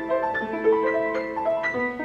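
Steinway piano playing a quick passage in several voices, with new notes struck about four times a second, each ringing on and fading.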